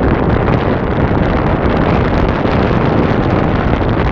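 Loud, steady wind rumble buffeting the microphone of a camera riding along on a moving bike.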